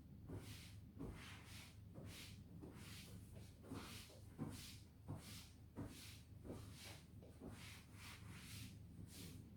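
Faint, even hand-cleaning strokes on a surface, about two swishes a second, the rhythm of wiping or dusting back and forth.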